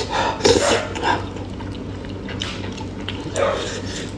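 Close-up wet chewing and slurping while eating saucy braised giant snail meat by hand. There are a few separate smacking, squelching mouth sounds.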